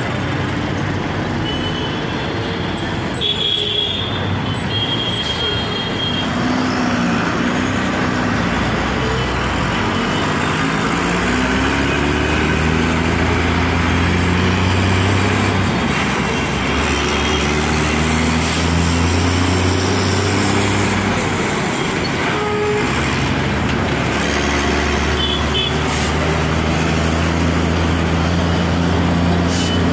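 Busy city road traffic: a nearby vehicle engine revving up and dropping back again and again as it changes gear, with short horn toots a few times.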